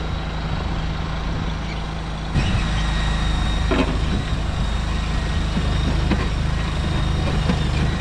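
Stand-on tracked mini skid steer running steadily under load as it drives forward with its bucket cutting into the dirt, a steady high whine over the engine. It gets louder about two and a half seconds in, with scattered scraping and clanks from the bucket and tracks.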